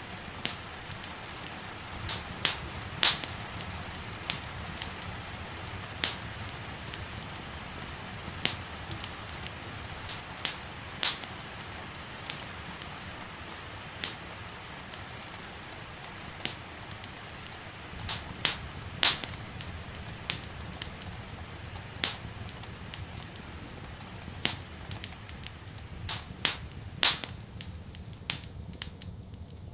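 Wood fire in a fireplace crackling, with sharp pops at irregular intervals, over a steady soft hiss of rain. The rain hiss thins out near the end.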